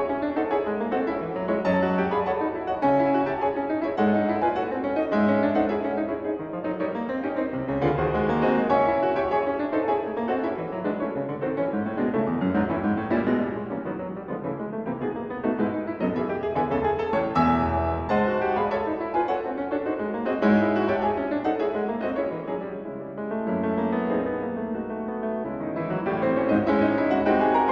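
Piano music playing continuously, a flowing instrumental piece with many notes.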